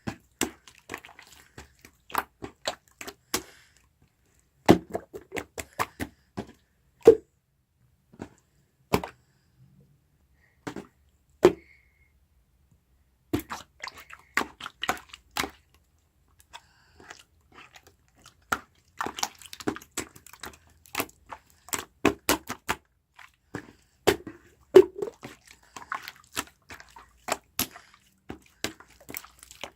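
Irregular run of sharp clicks and taps close to the microphone, with a few louder knocks and a short pause partway through.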